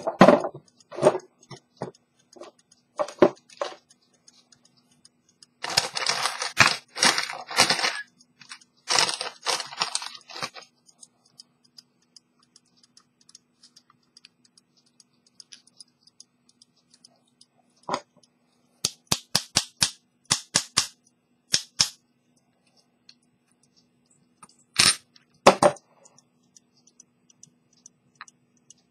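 Handling sounds of work on a pocket watch at the bench: sharp clicks and taps, a few seconds of scraping and rustling close to the microphone, then a quick run of small clicks and two more near the end.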